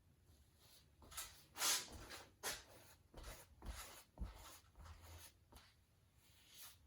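Large paintbrush dragged down a canvas in a series of short swishes, about eight strokes, the loudest about a second and a half in.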